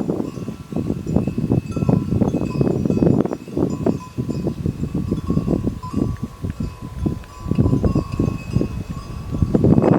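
Bells on grazing water buffalo ringing, several steady bell tones that overlap, over a dense low rustling.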